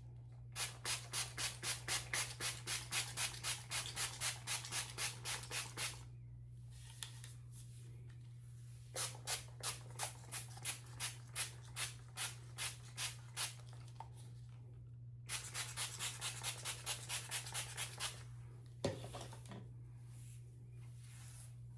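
Trigger spray bottle of leave-in conditioner spritzed over and over, about three quick sprays a second, in three runs with short pauses between; the bottle is nearly empty. A low steady hum runs underneath.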